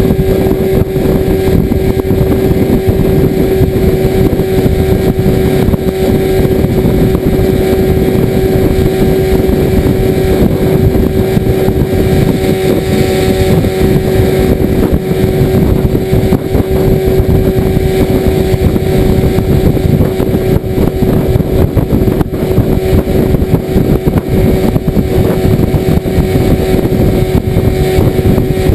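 Outboard motor running at a steady throttle, driving a small aluminum skiff under way, with one unchanging droning pitch.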